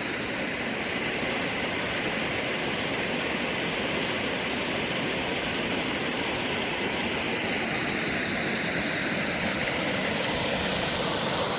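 Small waterfall in spate: a steady, loud rush of water pouring over the fall, swollen by floodwater where there is usually only a tiny stream.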